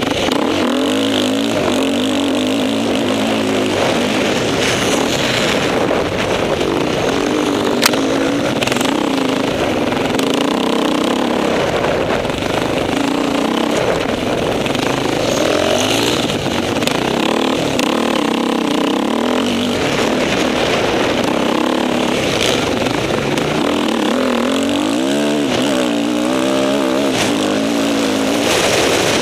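Off-road motorcycle engine revving up and down continuously as it is ridden hard over a dirt track, its pitch climbing and dropping with the throttle and gear changes over a constant rushing noise. There is a single sharp click about eight seconds in.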